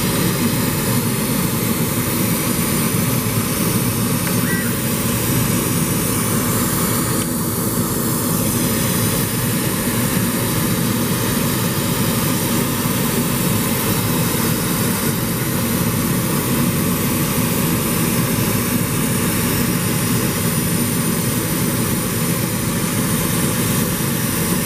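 CNC laser cutter running while it cuts polyurethane foam: a steady, even rushing noise that holds the same level throughout.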